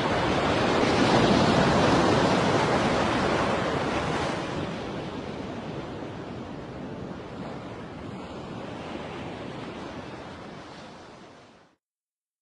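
Steady rushing sound of ocean surf with no music over it. It is loudest over the first few seconds, then slowly fades away and stops near the end.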